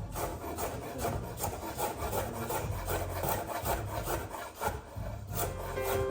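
Kitchen utensil scraping against wood or a pan in quick repeated strokes, about four to five a second, as in food preparation.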